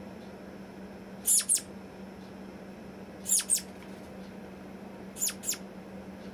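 Southern flying squirrel calling: three pairs of high, sharply falling chirps, the pairs about two seconds apart. These are the calls it gives at the slightest noise.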